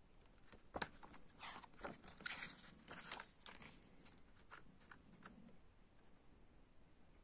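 Paper pages of a CD booklet being turned by hand: a sharp tap a little under a second in, then a couple of seconds of quiet paper rustling and crinkling as the page turns over.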